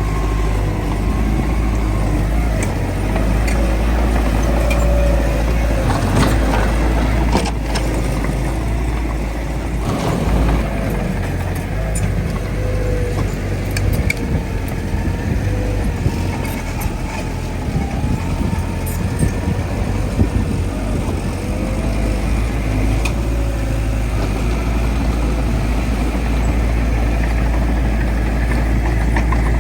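Bulldozer's diesel engine running steadily under load, a deep continuous drone, with a few sharp clanks partway through.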